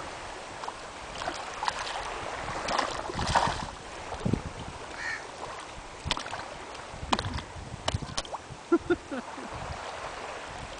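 Shallow seawater sloshing around a waist-deep wader, with light splashes and a few sharp clicks and splashes between about six and eight seconds in, as fish come to the surface at the hand offering food.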